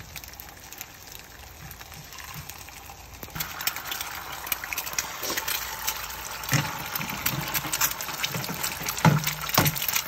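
Eggs frying in hot oil in a frying pan, sizzling and crackling; the sizzle gets louder about a third of the way in as an egg goes into the oil. A few knocks from eggshells being cracked, the loudest near the end.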